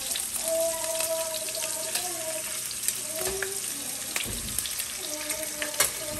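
Bacon sizzling in a frying pan: a steady hiss with a few sharp pops of fat.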